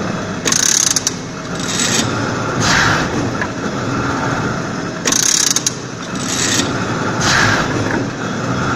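Horizontal veneer slicer running through its cutting cycle: a steady mechanical clatter, with a loud harsh burst lasting about half a second about half a second in and again about five seconds in, the cycle repeating roughly every four and a half seconds.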